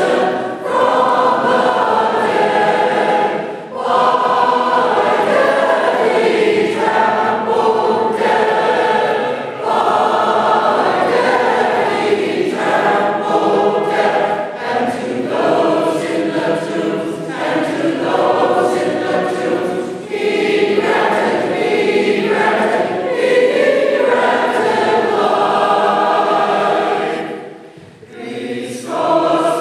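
Byzantine Catholic choir singing a Paschal hymn, holding sustained chords phrase after phrase with short breaks between them and a longer pause near the end.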